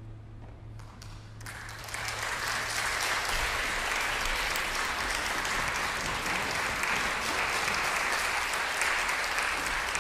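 Audience applause: a few scattered claps, then full, steady clapping from about two seconds in.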